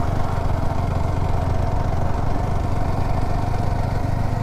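Yamaha R15 V4's single-cylinder engine running steadily, with no change in revs.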